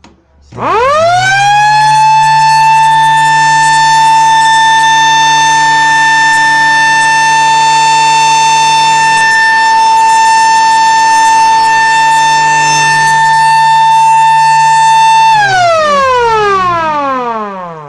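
Small AC mechanical siren winding up quickly to a loud, steady high wail and holding it for about fourteen seconds. Near the end it winds down with a smoothly falling pitch as the rotor coasts to a stop.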